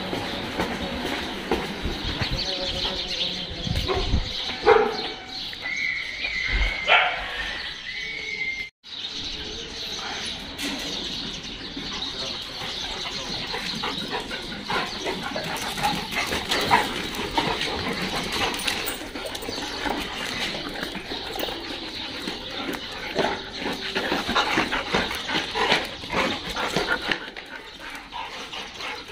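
Several dogs barking now and then over a busy background of clicks and knocks.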